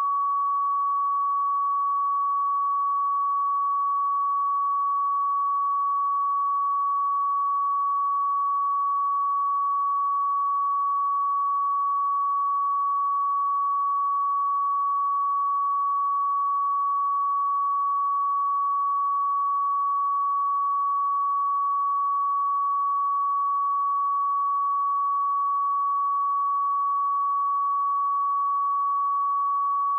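Continuous pure sine-wave test tone at 1128 Hz, one steady high-pitched note at constant loudness with no other sound.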